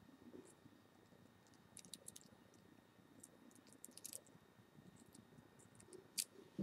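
Near silence with a few faint, scattered clicks from round-nose pliers working a metal head pin strung with wooden and turquoise beads, as a loop is turned in the pin's end. The sharpest click comes about six seconds in.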